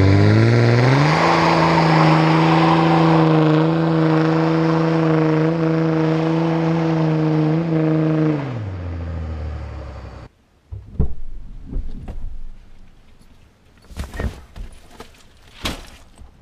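Dodge Ram pickup's Cummins diesel revved up over about a second and held at steady high revs for some seven seconds, then let back down. It fades out about ten seconds in, and a few scattered faint knocks follow.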